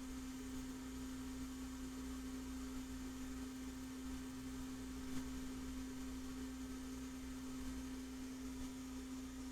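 A steady, unchanging low electrical hum, one pure tone with a fainter low rumble beneath it. One faint tick about five seconds in.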